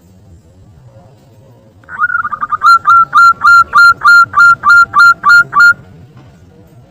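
Zebra dove (perkutut) song: a quick stuttering run of notes, then about a dozen loud, evenly spaced coos at one steady pitch, roughly three a second. It is played as a lure recording to draw other doves into calling.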